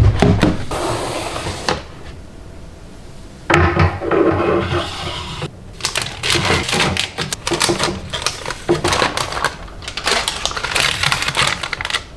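Household objects being handled: a rapid clatter of clicks and knocks mixed with rustling, in bursts that stop and start.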